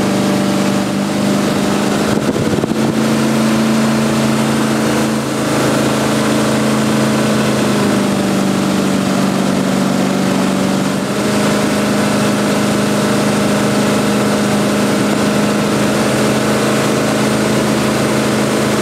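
A 1970s fiberglass jet boat's engine running steadily under way. Its note drops a little about five seconds in and comes back up about eleven seconds in.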